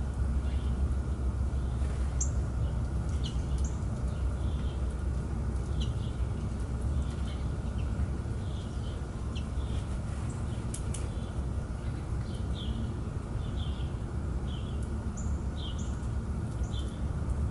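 Short, high chirping calls of American goldfinches, scattered all through, some falling in pitch and some coming in quick pairs, over a steady low background rumble.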